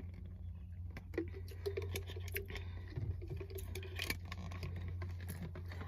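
Light clicks and knocks of a plastic water bottle being handled and its lid worked, over a steady low hum inside a car.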